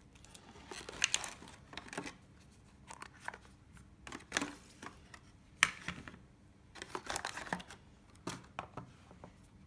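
Hearing-aid storage cases being handled and lifted out of their cardboard boxes and plastic trays: scattered rustles and light clicks of plastic and cardboard, with one sharp click a little over halfway through.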